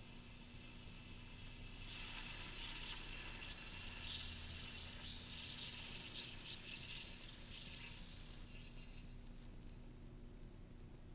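Calcium metal fizzing in water as it gives off hydrogen bubbles, with a crackling hiss. The fizz swells about two seconds in and dies down after about eight seconds.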